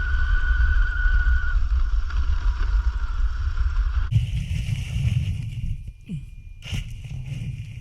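Electric 1/5-scale RC car running: a steady high whine over a heavy low rumble. About four seconds in it changes abruptly to quieter, uneven rumbling with a few sharp clicks.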